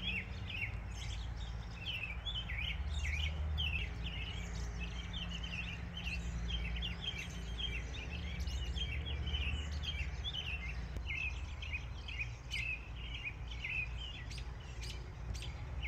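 Birds chirping in a dense evening chorus, many short high calls several times a second, over a steady low rumble.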